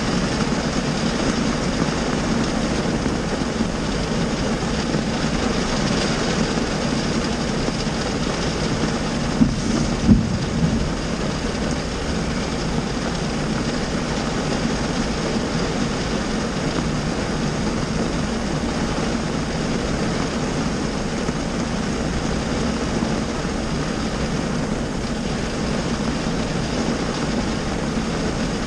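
Heavy rain drumming steadily on a car's roof and windshield, heard from inside the cabin, with two or three short thumps about ten seconds in.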